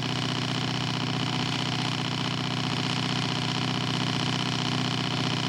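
Engine of a radio-controlled scale Fokker D.VIII model airplane running steadily in flight, an even drone with a thin high whine on top.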